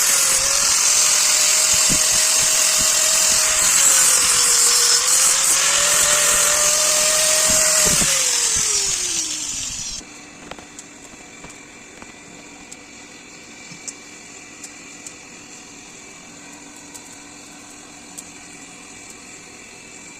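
Electric grinder running with loud grinding noise on steel, its motor pitch dipping and recovering under load. About eight seconds in it is switched off and winds down in a falling whine. After that only a faint steady hum with a few light ticks remains.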